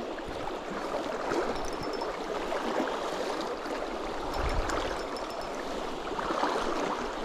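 Shallow river running over a stony bed: a steady rush of flowing water.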